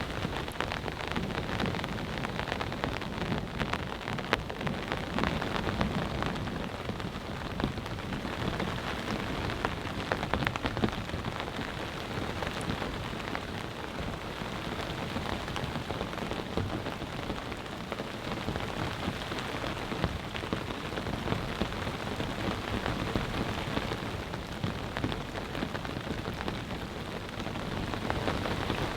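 Heavy rain pouring down steadily, a dense, even patter of drops.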